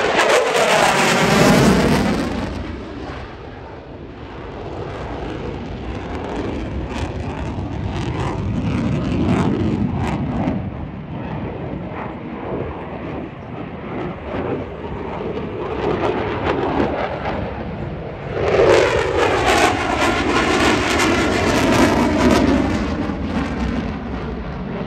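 F-16 Fighting Falcon's jet engine (GE F110) as the fighter flies its display: loud jet noise swells as it passes close at the start with a falling, sweeping pitch, eases to a steadier, more distant rumble, then swells again in a second close pass about 19 seconds in before fading.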